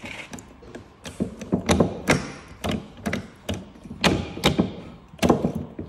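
Gear lever of the S5-20 gearbox being worked through the gears on the bench, the selector mechanism clunking into each position: a quick run of sharp clunks and knocks, two or three a second.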